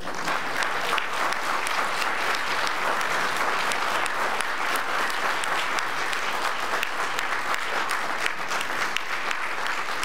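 Congregation applauding, many people clapping at once; it starts suddenly and keeps up at an even level.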